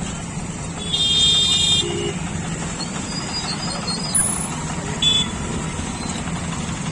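A short, high-pitched horn toot about a second in, lasting just under a second, and a brief second toot about five seconds in, over a steady low hum of traffic at a railway level crossing.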